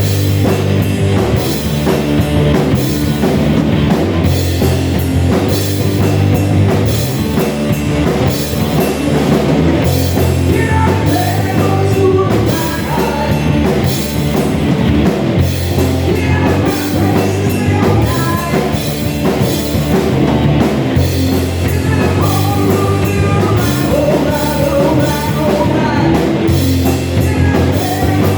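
A rock band playing live: loud distorted guitars, bass and a pounding drum kit, with a singing voice coming in partway through.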